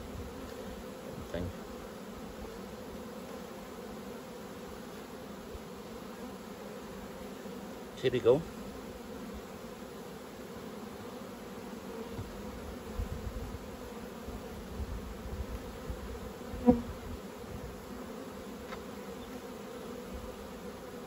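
Honeybees humming steadily from an open hive full of bees, with a few brief sharp sounds; the sharpest comes about three-quarters of the way through.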